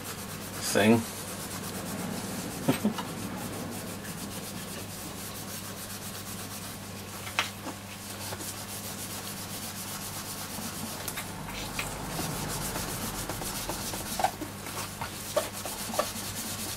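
Brasso wadding rubbed by hand back and forth over tarnished aluminium trim, a steady scrubbing as the tarnish is polished off.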